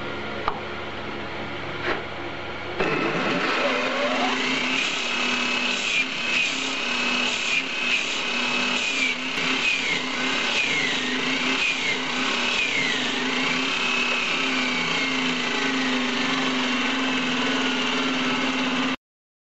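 Surface grinder with an abrasive-band wheel grinding the flat of a steel knife blank on a magnetic chuck. A low hum with two clicks, then about three seconds in the grinder's whine comes up to a steady high pitch that dips again and again as the band bites into the steel, before cutting off suddenly near the end.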